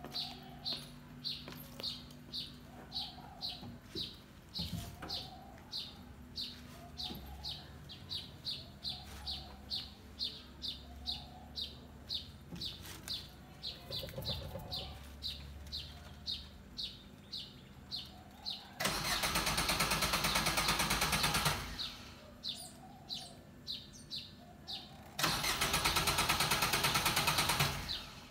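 Suzuki Swift's starter cranking the engine twice, each time for about three seconds, and stopping without the engine catching: a car that won't start on the first try. A bird chirps about twice a second behind it.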